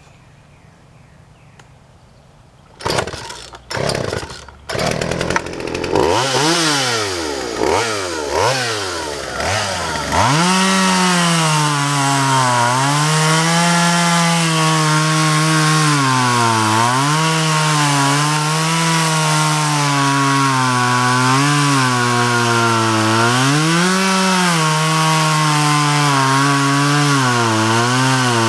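Vintage Craftsman 2.4 cubic inch two-stroke chainsaw being pull-started: a few short bursts of starter pulls and sputters about three seconds in, then it catches and revs up and down. From about ten seconds it runs at high revs cutting into a log, its pitch dipping and recovering as the chain loads in the wood; the owner says the chain needs sharpening or replacing.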